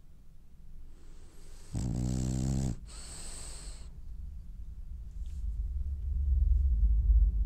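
French bulldog snoring in its sleep: one loud snore about two seconds in, wrapped in a breathy hiss of air, then a low rumble that builds toward the end.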